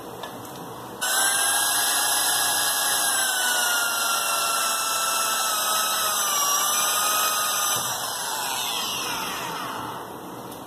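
Electric drill boring into a small metal part held in a bench vise. It starts suddenly about a second in, runs with a steady high whine that wavers a little in pitch, then winds down with falling pitch near the end.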